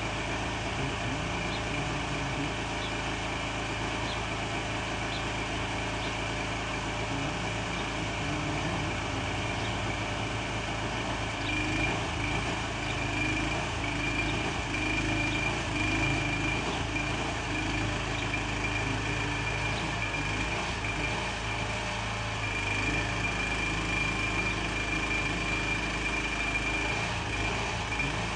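Truck engine running steadily while it powers the hydraulic loading frame that lifts a portable storage container, with a thin high whine that grows louder twice, about twelve seconds in and again about twenty-two seconds in.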